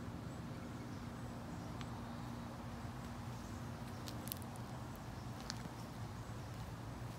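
Outdoor garden ambience: a steady low hum with a few brief, sharp high-pitched ticks.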